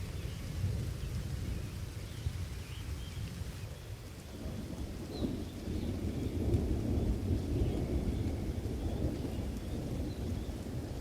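Steady rain with a deep, continuous rumble of thunder underneath, which swells about halfway through and stays louder.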